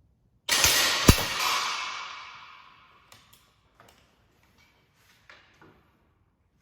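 An Effecto PX5 Sport .177 air rifle firing a shot: a sudden loud crack with a ringing tail that fades over about two seconds, and a sharp click about half a second after it. A few light clicks follow.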